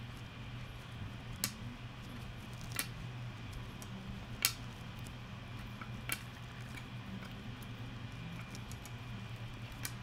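About five light, sharp clicks and taps of hands working on a tabletop, the loudest just before halfway, over a steady low hum.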